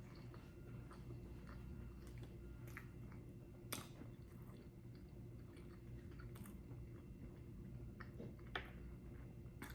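Faint chewing of food, with a few sharp clicks scattered through it, the loudest about four seconds in, over a steady low hum.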